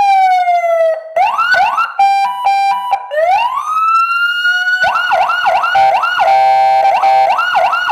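Electronic police siren cycling through its tones: a falling wail, then fast yelp sweeps, a stepped hi-lo pattern, a slow rising wail, and fast yelp sweeps again.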